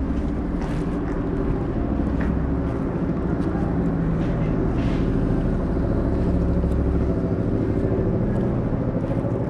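Steady low hum of motor vehicle engines in city street traffic, with a few faint clicks over it.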